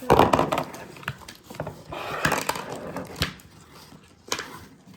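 Plastic toy pieces being handled and set down: a run of light clicks and knocks, busiest at the start and thinning out later.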